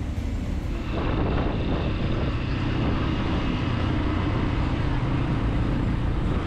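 Street ambience at first, then, about a second in, a motorcycle underway on a town road, heard from on the bike: a steady engine and road rush with a lot of low rumble.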